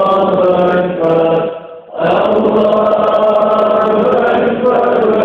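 Men's voices chanting together in Arabic, a religious chant of long, drawn-out notes. It breaks off briefly about a second and a half in, then resumes.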